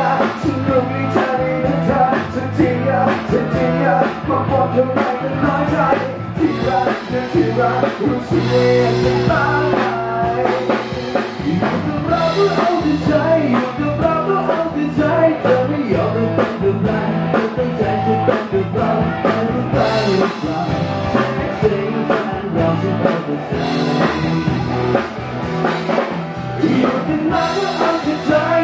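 A man singing into a handheld microphone over loud backing music with a drum kit keeping a steady beat.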